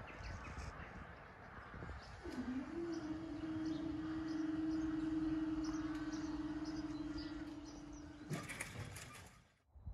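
Level crossing barrier mechanism running with a steady whine for about six seconds as the barriers rise, followed by a brief rattle as they reach the top. Birds chirp faintly.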